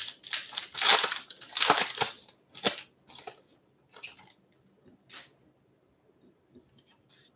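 A baseball trading-card pack wrapper being torn open by hand. Loud crinkling tears come in the first two seconds or so, then softer rustles as the cards are slid out of the wrapper, thinning out after about five seconds.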